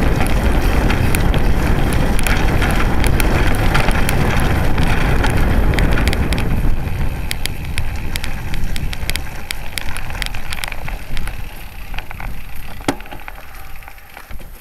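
Road bike riding over a rough dirt track: wind buffeting the microphone and the tyres rumbling over the ground, with many sharp rattling clicks from the bike. From about halfway the noise dies down steadily as the bike slows to a stop.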